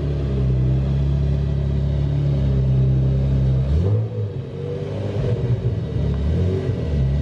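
Car engine and exhaust running with a deep, steady note, which turns uneven and shifts in pitch about four seconds in, as when the throttle is blipped.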